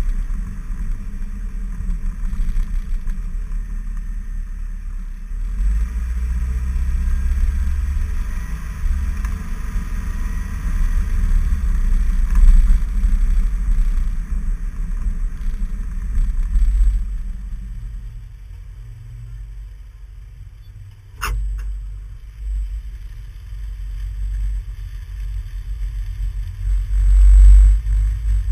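Car driving, heard from a GoPro sealed in its waterproof case on the outside of the body: a heavy, gusting low rumble of wind buffeting and road noise. The hiss thins out about two-thirds of the way through, and a single sharp click comes a few seconds later.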